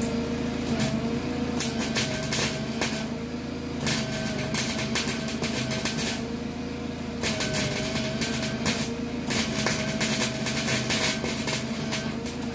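Small 120-volt wire-feed welder arc crackling in four bursts of about two seconds each, with short pauses as the trigger is pulled and released. It is stitching filler metal into a rusty hole in sheet-metal floor, letting each bit cool so it doesn't melt through. A steady hum runs underneath.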